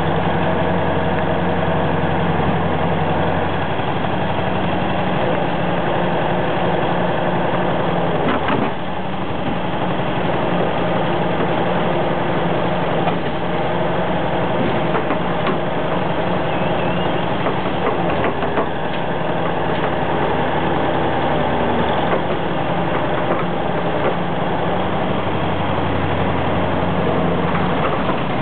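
Diesel engine of an old Soviet EO-5123 front-shovel hydraulic excavator running steadily as it digs and loads snow, its low note dropping away and coming back several times with the working cycle. A few short knocks stand out above it.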